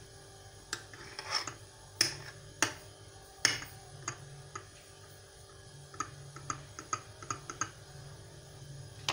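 Metal spoon stirring coffee in a cup, clinking against its sides: a handful of sharp clinks in the first half, then a run of lighter, quicker ticks about six seconds in.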